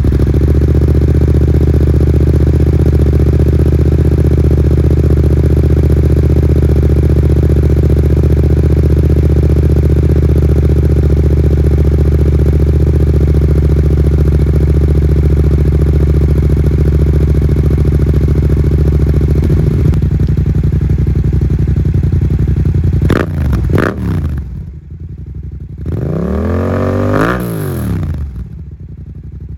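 Yamaha MT-07's parallel-twin engine through a MIVV Delta Race exhaust, idling steadily and loud. Near the end it is blipped twice in quick succession, then revved once higher and let fall back to idle.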